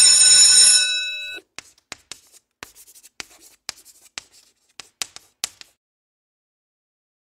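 A bright bell chime rings and fades over about a second and a half. It is followed by an uneven run of short chalk taps and scratches on a blackboard, close to twenty over about four seconds, which stop about a second and a half before the end.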